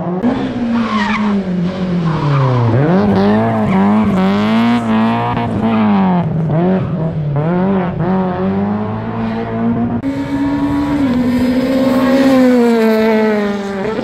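Rally car engine revving hard and falling away in quick repeated swings, with tyre squeal as the car slides through the turns. Later come high, steady revs that drop off near the end.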